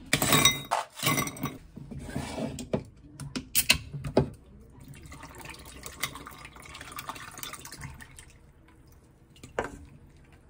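Ice cubes clattering into a glass, with a few more clinks, then a drink poured over the ice for a few seconds, and a single clink near the end.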